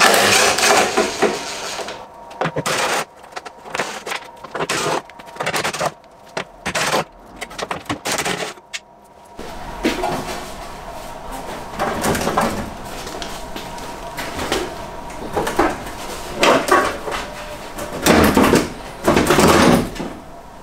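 Irregular metallic clinks, knocks and clatter from a socket tool on the 8mm bolts along the top of a BMW E30's steel front wing and from handling the panel, choppy with short gaps in the first half.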